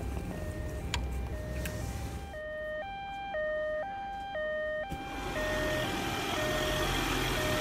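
Two-tone ambulance siren, the German 'tatü-tata' kind, stepping between a low and a higher note about every half second. It is louder for a few seconds in the middle, with a low rumble underneath near the start and end.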